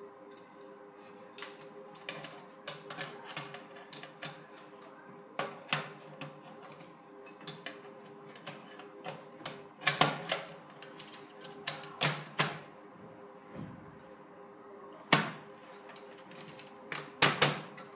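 Irregular sharp clicks and knocks of plastic and metal parts being handled inside an open desktop computer case as an expansion card is seated and cables are plugged in. The louder clicks fall about ten, twelve and fifteen seconds in, with a quick pair near the end, over a faint steady hum.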